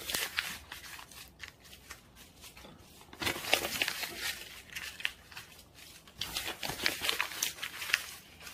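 Sheets of paper being torn and crumpled into balls by hand, in three bursts of crackling rustle.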